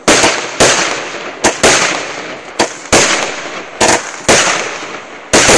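Aerial fireworks bursting overhead in quick, irregular succession: about ten loud bangs in five seconds, each trailing off in a fading echo.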